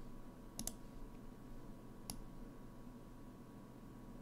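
Computer mouse clicking: a quick double click about half a second in and a single click about two seconds in, over a faint steady electrical hum.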